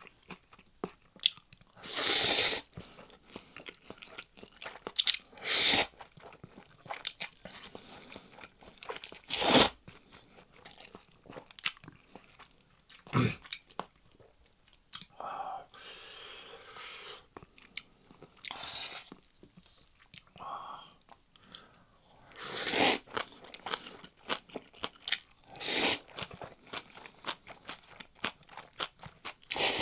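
A person chewing and biting mouthfuls of Chapagetti noodles and green onion kimchi, close to the microphone: irregular soft mouth clicks broken by several loud, short bursts of eating noise.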